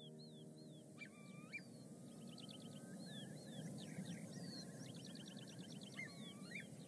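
Birds calling faintly, with quick repeated trills and short down-slurred whistles, and a few lower swooping calls about a second in and again near the end. Beneath them is the steady low rush of a small rocky stream.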